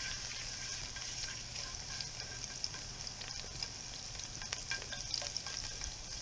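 Chopped garlic sizzling in avocado oil in a nonstick frying pan, stirred with a slotted spatula that makes small scraping ticks against the pan.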